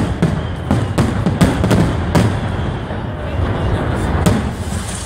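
Aerial firework shells bursting in quick succession during a fireworks finale: a rapid string of sharp bangs over a continuous low rumble.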